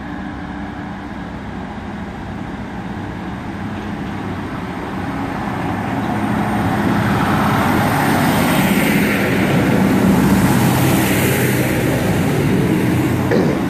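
ScotRail Class 156 Super Sprinter diesel multiple unit pulling away under power, its underfloor Cummins diesel engines running steadily. The engine note and running noise grow louder as the train draws level and passes close by, loudest in the second half.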